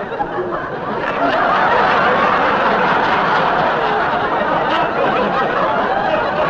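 Studio audience laughing, swelling about a second in and holding loud.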